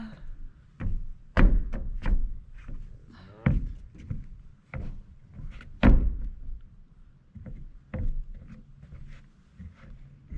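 Heavy thuds and knocks at irregular intervals, about a dozen, with a low rumble between them, from a big roof panel being worked and banged into position.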